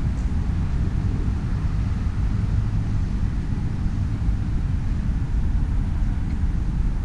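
Steady low rumble of wind buffeting the camera's microphone outdoors, with no distinct events.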